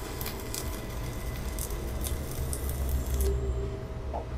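Stick (MMA) welding arc from a mini welder burning a 2.5 mm electrode at about 150 A, a steady crackle and sizzle that cuts off abruptly about three seconds in as the arc is broken at the end of the bead.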